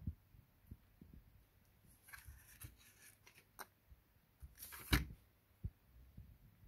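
Handling noise from the plastic disc-drive mechanism of a Sony DVP-NS905V player: soft bumps, a scratchy rustle with small clicks about two seconds in, and a sharp knock about five seconds in as the mechanism is set down on the table.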